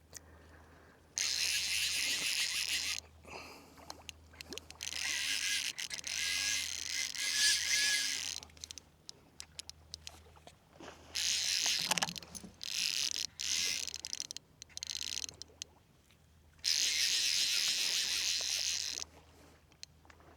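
Nautilus fly reel's drag whirring in several bursts of one to four seconds as a hooked redfish runs and pulls line off it.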